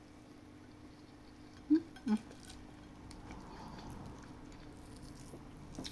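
A person chewing and eating fish with rice close to the microphone, with two short, louder mouth sounds about two seconds in, over a steady low hum.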